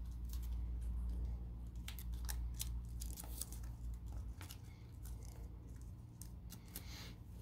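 Sheet of origami paper handled and creased by hand: light, scattered crinkles and clicks as the folded figure's beard is shaped, over a low rumble that fades about halfway through.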